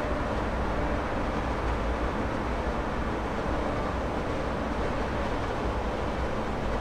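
A Boeing 747-8's four GEnx-2B turbofan engines running, a steady, even jet rumble.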